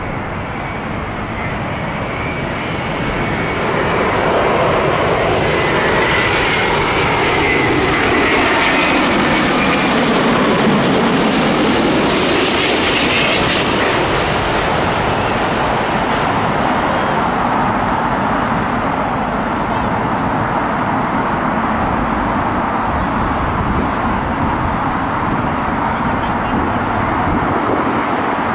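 Jet airliner on final approach passing low overhead to land. The engine noise swells to its loudest about ten seconds in, with a falling whine as it goes over, then settles into a steady roar as it moves away toward the runway.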